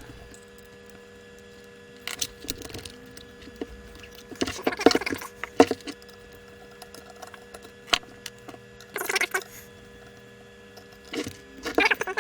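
Irregular metallic clicks, taps and rattles of an Allen key and small parts being handled while the motor is unbolted from the instrument, in several short clusters with pauses between.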